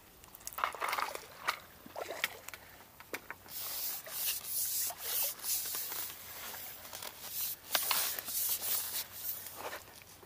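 Landing net with a freshly caught bream being lifted from the water and brought onto the bank: irregular rustling and scraping with scattered sharp clicks and knocks as the net and its handle are handled.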